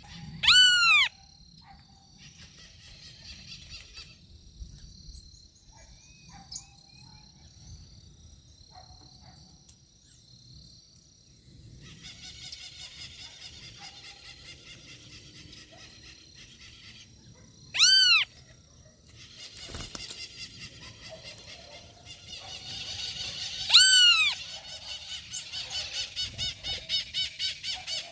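Birds calling at a backyard feeding spot. Three loud, short, arching calls come near the start, about two-thirds through and again near the end, over stretches of fast, high-pitched chattering from smaller birds that grows busier toward the end.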